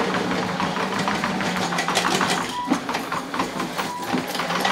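Tracked remote-control lawnmower driving and turning under a rider: its drive motors run with a steady low hum, and the tracks clatter with rapid clicking.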